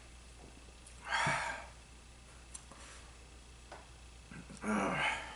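A man's two loud, breathy exhales, one about a second in and one near the end, the second with a little voice in it: satisfied sighs after a swig of canned soda.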